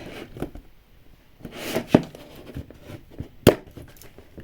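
Small toy-kit pieces being handled and fitted on a tabletop, with light rustling and two sharp clicks, about two seconds and three and a half seconds in.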